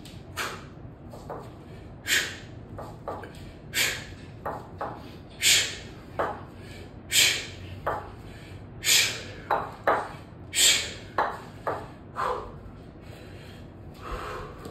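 A man's sharp, hissing exhalations, one with each rep of a double kettlebell swing, about one every second and a half to two seconds, with shorter softer strokes between them.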